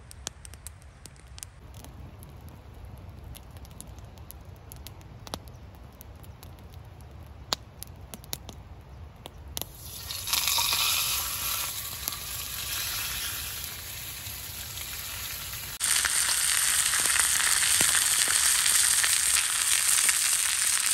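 Wood campfire crackling with scattered sharp pops. About ten seconds in, a thick bone-in beef steak laid into a pan of hot oil starts sizzling loudly, and the sizzle gets louder again about six seconds later.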